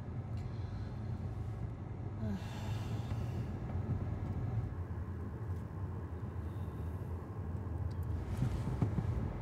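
Car interior road noise: the steady low rumble of a car driving, heard from inside the cabin.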